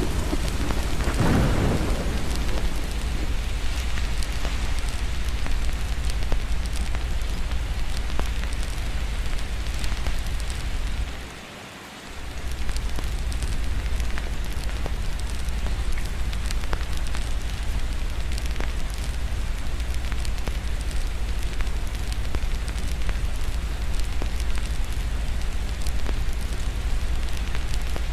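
Steady heavy rain with a deep low rumble of thunder, a louder roll swelling and fading in the first couple of seconds, and scattered small clicks through it. About eleven seconds in the whole sound briefly drops away for about a second and then comes back.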